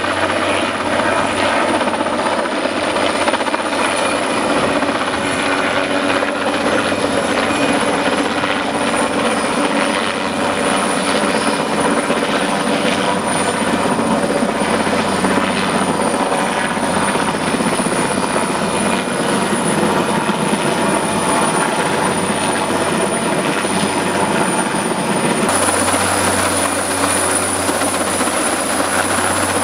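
Sikorsky S-58T helicopter in a hover during an external-load lift: its turbine engines and rotor running as a steady rumble with a constant high whine, getting somewhat louder about 25 seconds in.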